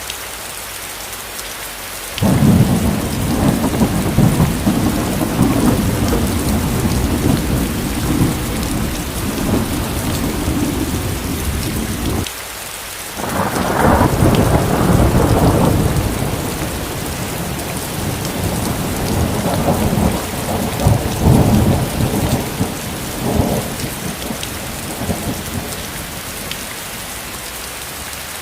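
Steady rain with two long rolls of thunder. The first begins suddenly about two seconds in and stops abruptly around twelve seconds. The second starts a second later and rumbles on with several louder peaks before dying away near the end.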